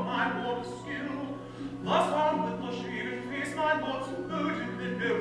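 Stage musical singing by a male voice, over sustained instrumental accompaniment.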